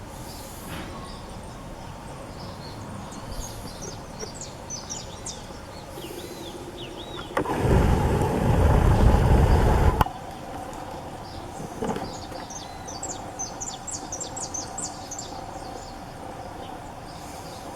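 Birds chirping over a steady outdoor background, with a loud rushing noise for about two and a half seconds near the middle that starts and stops abruptly.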